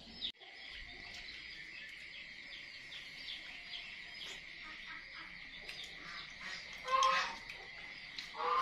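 Quiet meal sounds: faint clicks of chopsticks against rice bowls over a steady high-pitched chirring, with a short voiced sound about seven seconds in.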